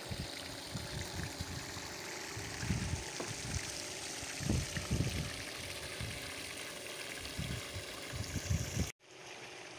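Floating fountain aerator spraying water into a fish pond: a steady hiss of spray and splashing, with irregular low thumps on the microphone. The sound cuts off abruptly near the end.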